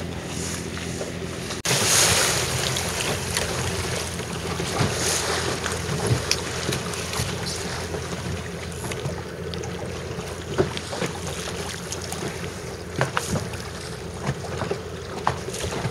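Wind buffeting the microphone over water splashing against a small boat, with a steady low hum underneath; the wind noise jumps louder a little under two seconds in.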